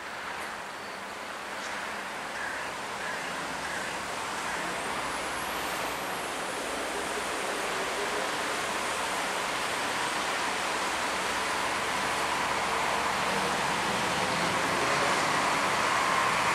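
Distant road traffic: a steady hiss of passing cars that grows gradually louder.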